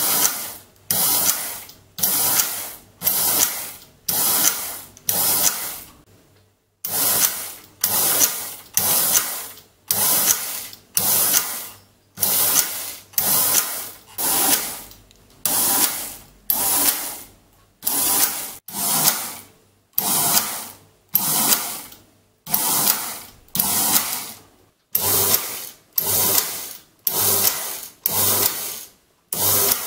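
Electric motor unit of an Ascota 110/314 mechanical calculator running in repeated cycles, about one a second. Each cycle is a short mechanical whirr of motor and gears that starts sharply and fades, with a longer pause about six seconds in.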